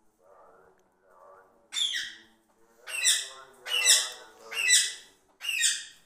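Caged parrot calling: soft low chatter at first, then five loud squawks about a second apart, each falling in pitch.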